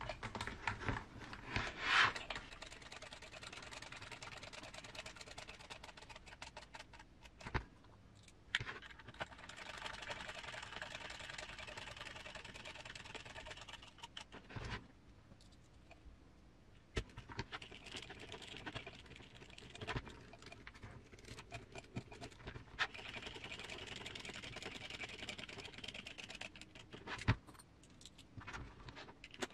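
Small screws being driven into a spur gear cover on a model car's transmission, with scattered clicks of small parts and tools being handled. Several stretches of a few seconds each of fine, fast clicking and scratching.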